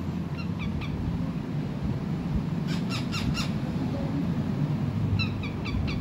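Rose-ringed parakeets making short, sharp chirps in small clusters: a couple just after the start, four quick ones about three seconds in, and several more near the end. A steady low hum runs under them.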